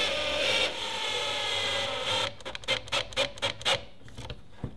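Cordless drill running steadily, boring a pilot hole through a Perspex window panel into its wooden frame, stopping about two seconds in. A run of sharp clicks and taps follows.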